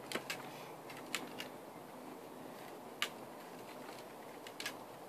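Faint quiet background with a few scattered light clicks and taps, the clearest about three seconds in, from a toddler's plastic tricycle being handled and shifted on concrete as he climbs onto it.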